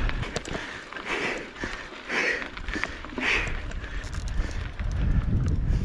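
Mountain biker breathing hard, about one heavy breath a second for three breaths, over steady clicking and rattling from the bike on a rough trail. Wind rumbles on the microphone, louder in the second half.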